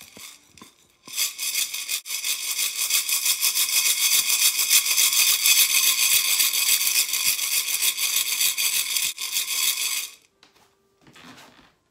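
Dry cat food kibble rattling inside a lidded glass jar as it is shaken and tilted back and forth: a continuous, dense rattle that starts about a second in and stops suddenly near the end. It is a homemade sound effect for pouring rain.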